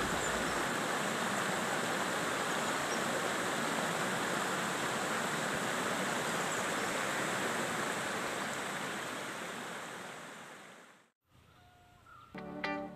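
Steady rushing of a rocky stream's water, fading out about ten seconds in. Plucked-string music starts near the end.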